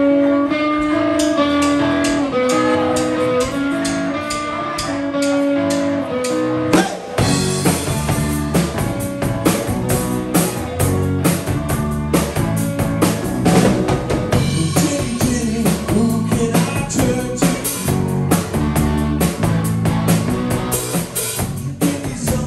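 Live rock band starting a song: an electric guitar riff over steady ticking from the drums, then bass and the full drum kit come in about seven seconds in and the band plays on instrumentally.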